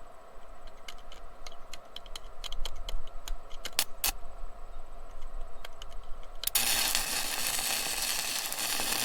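A few scattered light clicks and taps, then about six and a half seconds in a stick-welding arc strikes and burns steadily as a washer is welded onto a twisted-off bolt stub.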